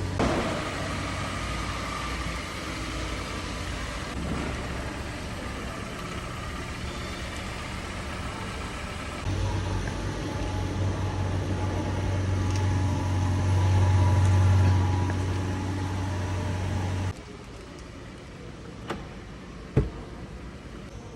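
Kia Sonet's stock engine and exhaust running, first steady, then a step louder about nine seconds in with a deep hum that builds to a peak. The sound drops away suddenly near the end, leaving a quieter background with a couple of sharp clicks.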